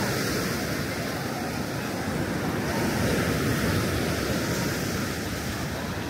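Sea waves washing on a beach, with wind buffeting the microphone: a steady surf that swells a little midway and eases off near the end.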